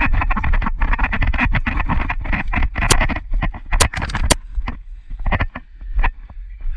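Footsteps crunching through dry fallen leaves and undergrowth, with close rustling of clothing and gear, for about the first three seconds. Three sharp cracks follow about three to four and a half seconds in, then lighter, scattered steps and rustles.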